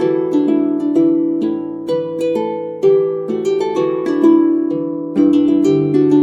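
Background music of plucked harp-like notes in a gentle flowing pattern, with a deeper sustained part coming in about five seconds in.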